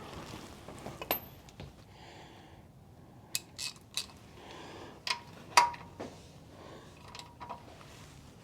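Metal tools clinking and clanking: a series of sharp metallic knocks, a few of them ringing briefly, the loudest about five and a half seconds in.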